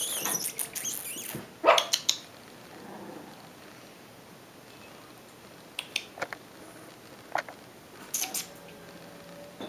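Six-week-old Shiba Inu puppy moving about on a wooden floor: a burst of sharp clicks and knocks in the first two seconds, then a few scattered clicks.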